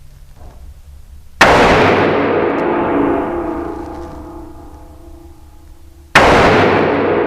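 .500 Smith & Wesson Magnum revolver fired twice, the shots about five seconds apart, each very loud blast followed by a long ringing decay that lasts a few seconds.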